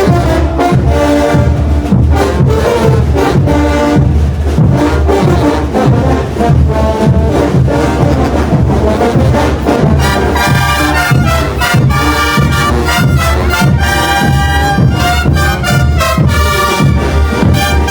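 Bolivian brass band playing loudly: low brass and drums keep a steady beat, and about ten seconds in the trumpets come in bright and strong over it.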